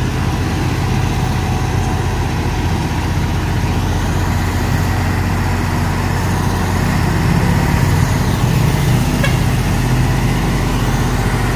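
Heavy truck engine running steadily, a low drone that grows a little louder partway through.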